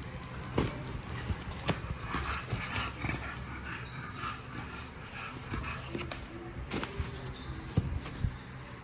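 Cookware box being unpacked by hand: scattered knocks and handling noises of cardboard and packaging.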